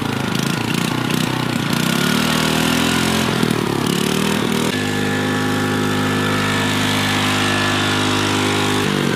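Riding lawn mower's engine running as the mower drives, its pitch wavering for the first few seconds, then holding steady, then dropping near the end. The engine has carburetor issues, with its throttle held open by a string.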